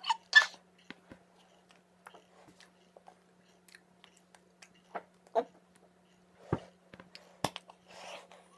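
Scattered short clicks, smacks and breathy mouth noises from a person signing close to the microphone, with two sharper knocks past the middle, over a faint steady low hum.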